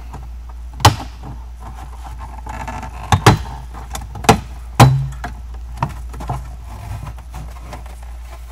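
Plastic footwell trim panel of a Tesla Model S being pulled off, its push-in retaining clips snapping loose in several sharp clicks: one about a second in, a cluster of four between three and five seconds in, then a few fainter ones.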